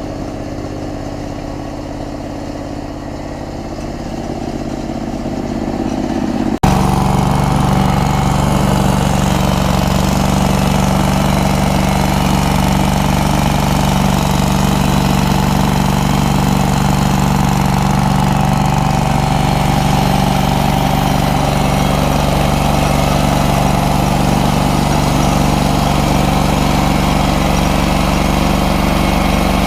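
Hudson portable band sawmill running, its engine steady. About six and a half seconds in, the sound jumps abruptly to a louder, fuller steady run.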